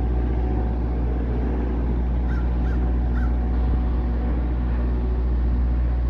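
Steady low rumble of a car engine running, with a crow cawing three times, quickly, between two and three seconds in.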